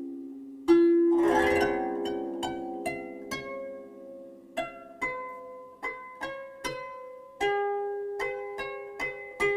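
Background music: a slow melody of plucked-string notes, each struck sharply and ringing away.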